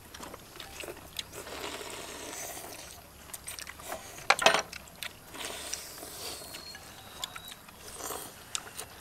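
People eating noodle soup: noodles being slurped, with chopsticks clicking against ceramic bowls and a metal pot. The loudest slurp comes about four and a half seconds in.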